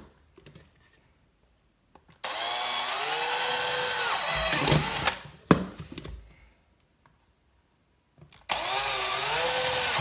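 Electric drill boring corner holes in plastic, in two runs of about three seconds with a quiet pause between. The motor's pitch rises as it spins up and falls as it slows. A sharp knock comes just after the first run.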